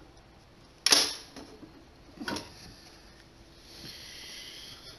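Sharp clicks of small sewing-machine tension parts being handled on a workbench: a louder one about a second in and a smaller one past the middle, then a soft rustle near the end.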